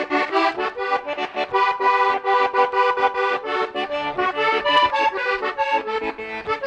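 Button accordion playing a fast vallenato melody in quick, clipped notes, with no singing.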